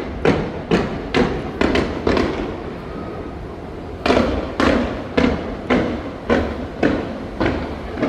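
Fireworks going off in quick succession, a string of sharp bangs about two a second, each trailing off in echo. The bangs stop for about two seconds partway through, then resume at the same pace.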